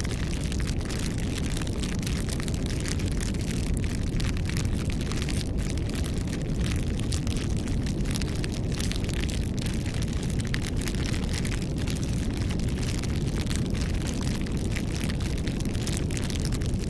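Campfire burning with a steady low rumble, crackling and popping many times a second in quick, sharp snaps.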